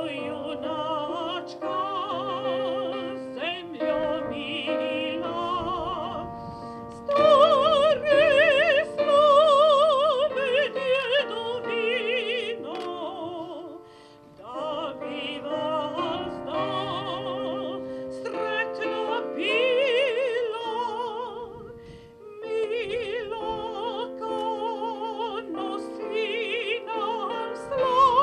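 A classical, operatic-style solo voice sings long held notes with strong vibrato over a sustained instrumental accompaniment, in several phrases with short breaks between them.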